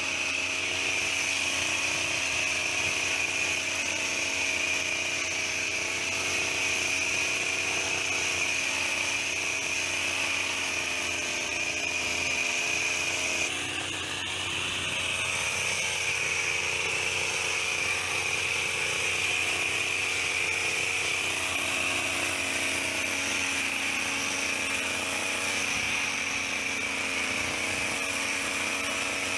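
Petrol hedge trimmer engine running steadily at high speed, with a brief dip in level and pitch about halfway through before it settles back.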